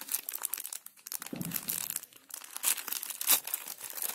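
Thin plastic packaging crinkling and rustling in the hands as a small pouch of travel-size cotton pads is pulled open, in a dense, irregular run of crackles.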